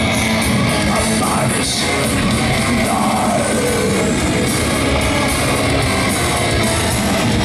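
Heavy metal band playing live: electric guitars and bass over a steady, loud beat, heard from within the crowd.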